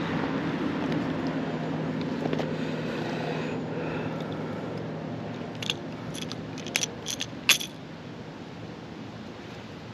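Road traffic passing on a nearby road, a steady rush with a low hum that slowly fades away. A few sharp clicks come a little past the middle.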